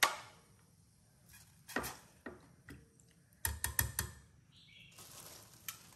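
A few sharp knocks and clatters, with a quick run of four or five about three and a half seconds in, from objects being handled or set down.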